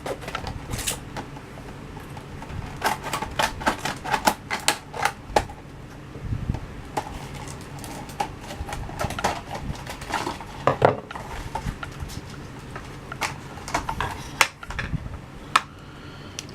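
Plastic packaging of an M2 Machines diecast car being cut and pried open by hand: an irregular run of clicks, snaps and crackles of stiff plastic, with a few sharper snaps standing out.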